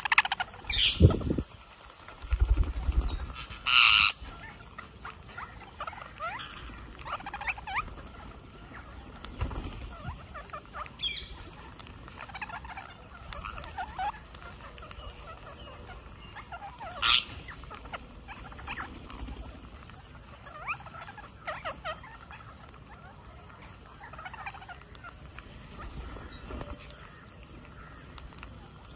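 Rose-ringed parakeets feeding on scattered rice: a busy patter of beak pecks and small clicks, with short chattering calls. A few brief, loud calls stand out about a second in, around four seconds in, and near the middle, over a faint steady high tone.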